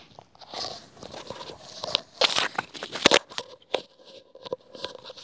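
Close crackling, rustling and clicking as a pair of white wired earbuds and their cord are handled and fiddled with.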